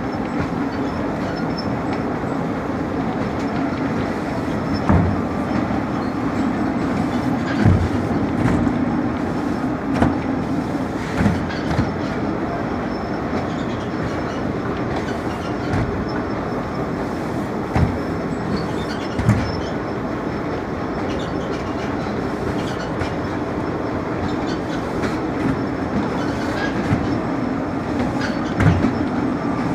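Heavy thuds of cement bags being dropped onto a stack, a few seconds apart at irregular times, over a steady rumbling noise with a low hum.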